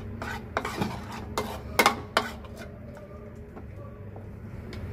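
A metal spoon clinking and scraping against a bowl as thick masala marinade is spread over chicken pieces. A series of sharp clinks comes in the first two seconds or so, then it goes quieter.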